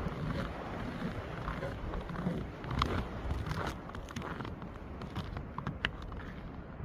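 Strong cold wind gusting and buffeting the microphone with a low rumble, with a few scattered sharp clicks or rattles.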